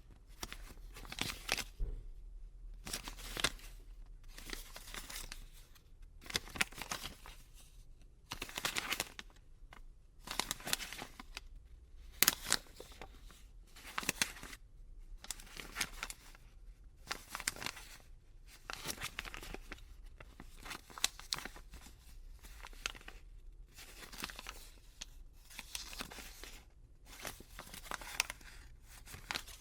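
Paper banknotes being handled and crinkled close up: short dry rustling bursts, roughly one a second, with brief pauses between.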